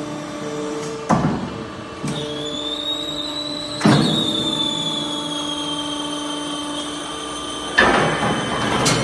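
CNC hot spinning machine running with a steady hum, joined about two seconds in by a high whine that slowly falls. Sudden loud bangs, each followed by a short rushing noise, come about a second in, about four seconds in, and twice near the end.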